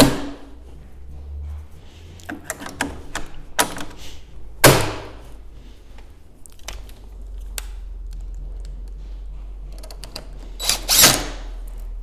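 Irregular knocks and clunks of handling a sliding patio door panel while its roller assemblies are fitted back into the ends of the panel, the loudest knock about five seconds in and another near the end.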